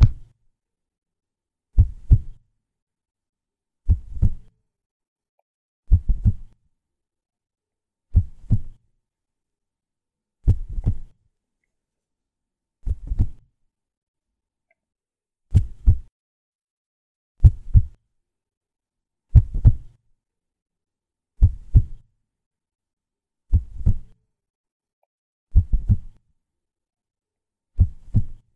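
Heartbeat sound effect: a low, slow thump of a heartbeat roughly every two seconds, with complete silence between the beats.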